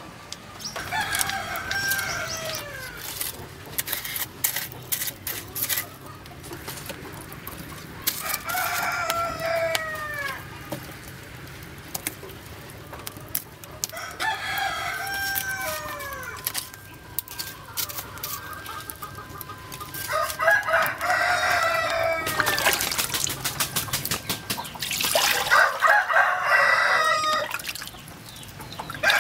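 Rooster crowing about five times, a few seconds apart, each crow around two seconds long and trailing off downward, with scattered sharp clicks between the crows.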